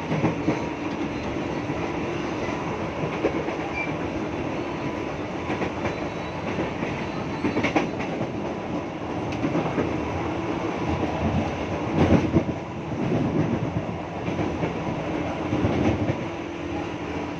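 KRL electric commuter train running along the track, heard from inside the carriage: a steady rumble with wheel clatter over the rail joints and a few louder knocks, the loudest about twelve seconds in.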